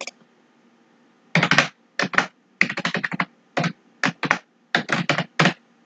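Typing on a computer keyboard: a single click at the start, about a second of quiet, then quick runs of keystrokes in clusters.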